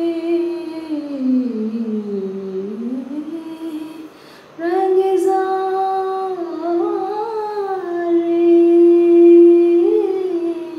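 A woman's voice singing the song's closing phrase on long drawn-out vowels: a held note slides slowly down and back up, a short breath break comes about four seconds in, then sustained, lightly ornamented notes, the loudest held near the end.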